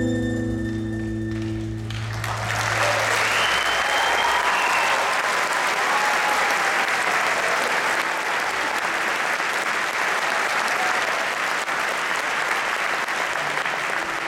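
The last notes of a piece of live music ring out, and about two seconds in an audience breaks into sustained applause and cheering.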